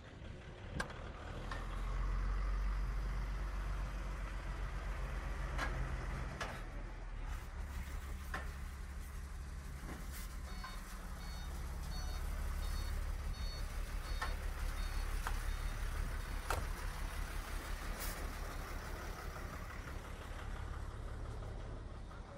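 Heavy truck diesel engine idling steadily, with a few sharp clicks and knocks scattered through and a run of quick high-pitched beeps about halfway through.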